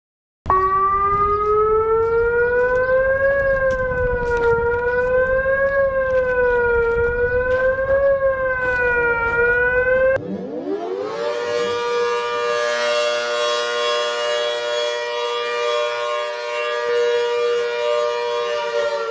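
Emergency alert siren in civil-defense style: a loud wavering tone that rises and falls about every two and a half seconds, then cuts off abruptly about ten seconds in and is replaced by a siren that winds up in pitch and holds one steady tone.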